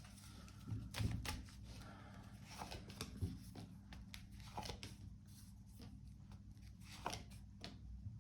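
Tarot cards being handled and laid down: scattered soft clicks and rustles of card stock, a few slightly louder card slaps about a second in, around three seconds in and near the end.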